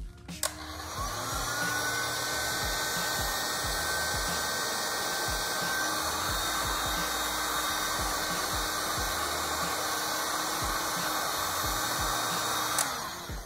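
Handheld heat gun switched on about half a second in, its fan whirring up to a steady blowing hiss as it shrinks heat-shrink sleeving onto a power cable, then switched off near the end with the fan winding down.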